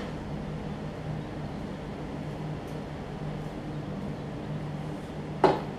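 Steady low mechanical hum, with one short sharp knock about five seconds in.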